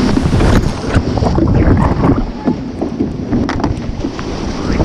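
Heavy wind buffeting the microphone over rushing surf water as a surf boat runs on a wave, with scattered splashes and knocks.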